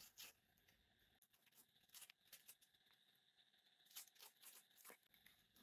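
Near silence with faint, scattered small clicks and crinkles, several of them a few seconds in.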